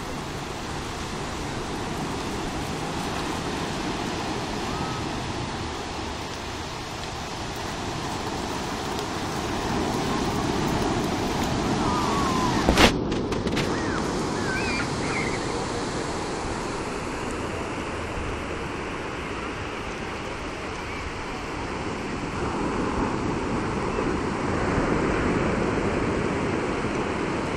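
Steady sea-surf noise from breaking waves, with a single sharp knock about halfway through.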